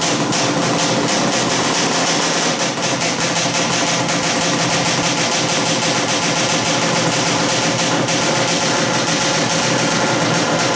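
Freshly rebuilt Yamaha Banshee 350's twin-cylinder two-stroke engine running steadily on its first start after the rebuild, a loud, rapid crackle of firing pulses.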